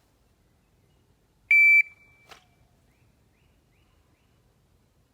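Shot timer's start beep: one short, high-pitched electronic tone about a second and a half in, signalling the start of a draw, followed shortly by a faint click.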